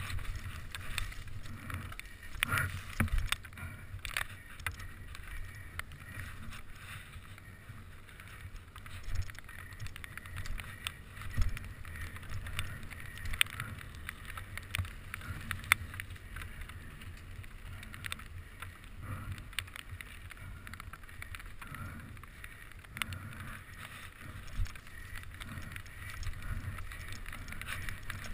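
Mountain bike freewheeling fast down a wet paved road, heard from a helmet camera: steady tyre hiss and low rumble, broken by frequent sharp rattles and knocks over bumps.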